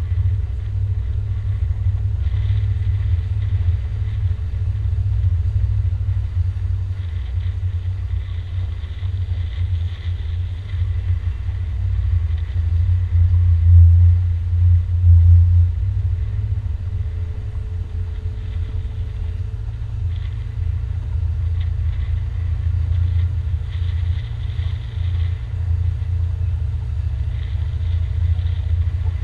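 Cabin cruiser under way: a steady low rumble that wavers constantly in level and swells for a couple of seconds a little past the middle, with a faint hiss above it.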